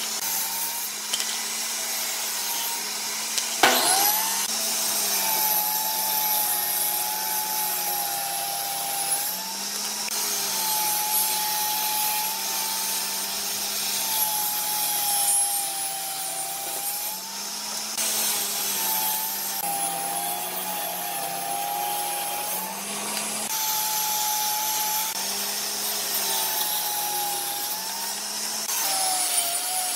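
Benchtop table saw running and ripping boards into strips, its motor whine sagging in pitch each time the blade bites into the wood and recovering between passes. There are several cuts in a row, and a brief sharp knock about four seconds in.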